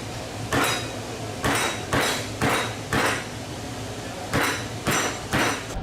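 A heavy cleaver chopping into a crocodile carcass on a chopping block: eight sharp strikes, mostly about half a second apart with a pause midway, each with a brief metallic ring.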